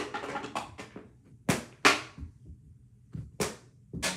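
Plastic balls knocking against a toy Skee-Ball game: a string of sharp clacks, irregularly spaced, some in quick pairs, the loudest near the start and about two seconds in.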